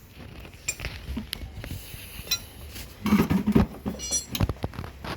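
Metal tools and parts clinking and knocking in scattered taps, with a ringing metallic clink about four seconds in and a louder burst of clatter just before it.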